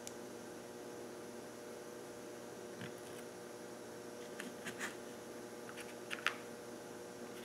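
Small parts of a Mercury outboard impulse fuel pump clicking and clacking as they are handled and set down on the workbench: a few light clicks scattered through, the sharpest about six seconds in, over a steady electrical hum.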